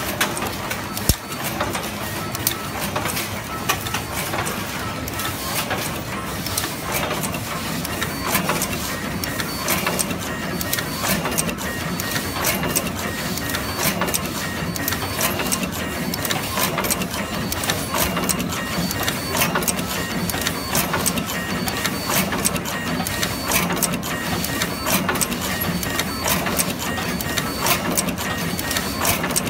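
Automatic terminal stripping and crimping machine running, with a steady hum under dense, irregular mechanical clicking and clatter, and one sharper knock about a second in.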